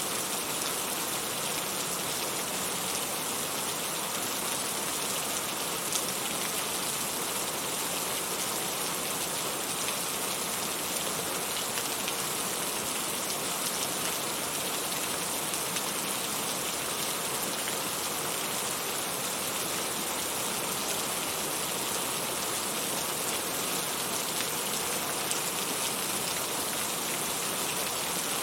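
Heavy rain falling steadily, an even hiss of drops on surfaces with no let-up, and one sharp tick about six seconds in. No thunder is heard.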